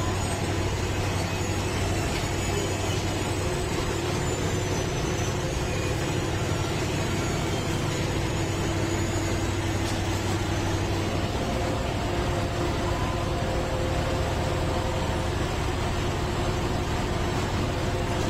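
Track-laying machine running steadily inside a rail tunnel, its engine and sleeper conveyor making an even, continuous machine noise with a low hum.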